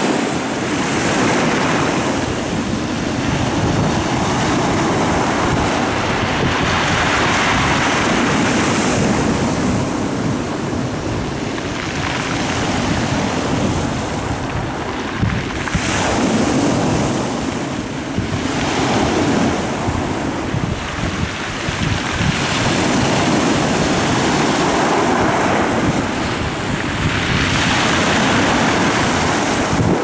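Sea waves breaking and washing up a pebble beach, the surf surging and falling back every few seconds, with wind rumbling on the microphone.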